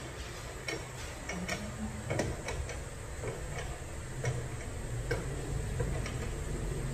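Light, irregular clicks of the riders on a triple beam balance being slid along the beam's notches to balance a soil sample, over a low steady hum.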